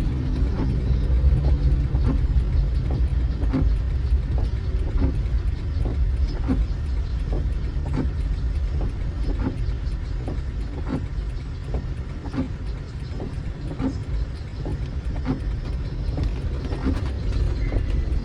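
Car driving, heard from inside the cabin: a steady low road and engine rumble, with a short soft knock repeating evenly about every one and a half seconds.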